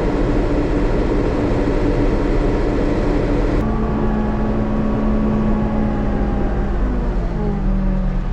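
Backhoe's diesel engine running steadily. About halfway through the sound changes abruptly, and the engine's pitch then slowly sinks as it slows.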